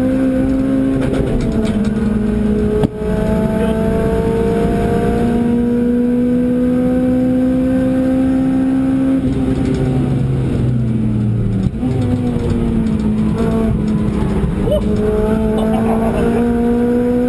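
Car engine heard from inside the cabin while lapping a race circuit under power: the engine note climbs steadily through the revs, with a brief break at a gear change about three seconds in and another about twelve seconds in, easing off and falling in between before it climbs again near the end.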